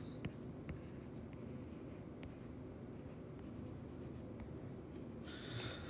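Faint taps and light scratching of a stylus writing on a tablet's glass screen: a few scattered, sharp ticks over a low steady background hiss.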